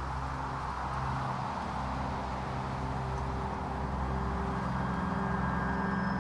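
Sustained ambient score drone: a wash of noise over a low rumble, with low held tones coming in and slowly building.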